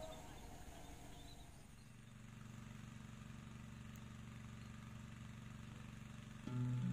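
Faint outdoor background with a steady low hum that starts about two seconds in. Background music with plucked-string notes begins just before the end.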